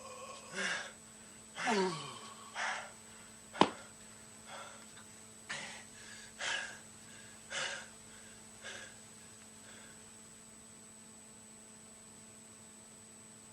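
Martial artists' short breathy grunts and exhalations, about eight of them, one sliding down in pitch, with a single sharp crack, the loudest sound, about three and a half seconds in. The last few seconds hold only faint tape hiss and hum.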